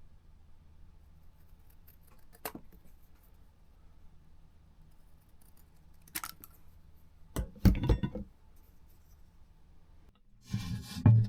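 Scissors snipping corners off, a few separate sharp snips spread out with pauses between them, then louder rubbing and handling noise near the end.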